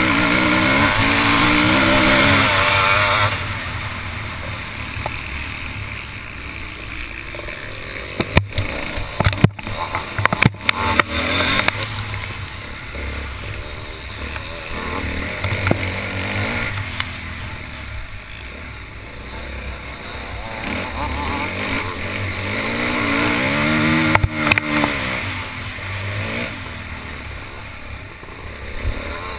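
Motocross bike engine heard from a camera mounted on the bike: it revs high, drops off about three seconds in, and rises and falls again near the end, under a steady rush of wind. A burst of sharp knocks and clatter comes about a third of the way through.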